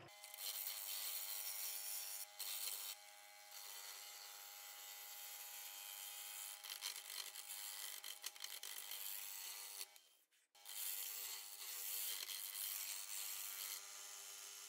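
Wood lathe spinning a silver maple blank while a gouge cuts it: a steady motor hum under a loud, hissing scrape of the tool shaving the wood. The sound breaks off briefly about ten seconds in.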